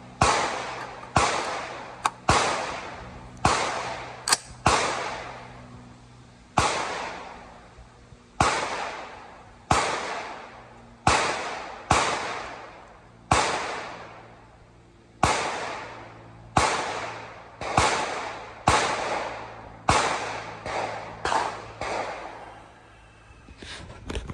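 Suppressed 6.5 Creedmoor AR-style rifle fired in a steady string of about twenty shots, roughly one a second with a few quicker pairs. Each shot is followed by a long echoing tail.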